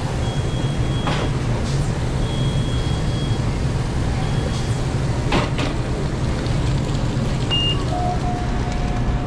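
Steady low hum of commercial restaurant kitchen equipment, with several short high electronic beeps from kitchen timers or appliances, a lower beep near the end, and a couple of sharp metal clanks.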